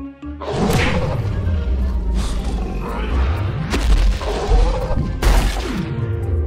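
Cartoon action music with heavy crash and boom sound effects. Sharp hits come about a second in, near four seconds and just after five seconds, with sweeping tones falling and rising between them.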